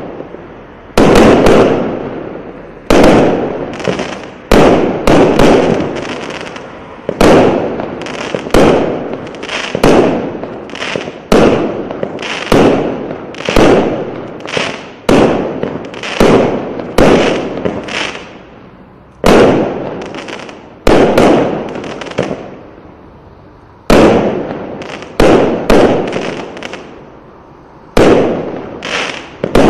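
A 0.8-inch, 80-shot firework cake firing shot after shot, about one a second with a few longer pauses. Each shot is a sharp bang that trails off over a second or so before the next.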